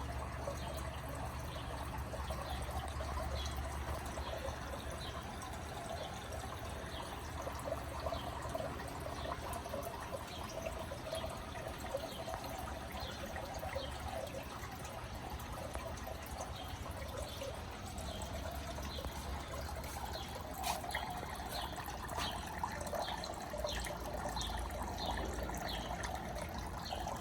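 Water trickling steadily, with short high chirps recurring throughout.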